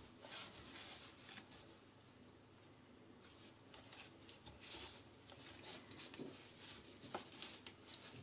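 Gloved hands scraping and scrubbing the paint off plastic motorcycle side panels: quiet, irregular scratchy strokes, with a small knock about seven seconds in.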